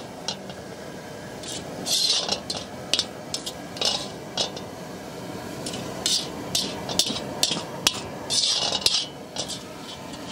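Metal ladle scraping cooked minced mutton across the bottom of a large iron kadai and scooping it into a steel bowl, in repeated short scrapes with a few sharp metal knocks.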